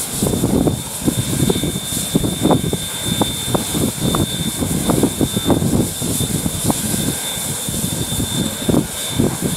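New Zealand JA-class steam locomotive 1271 standing and working: a steady hiss with a thin high tone running through it, under irregular low thumps.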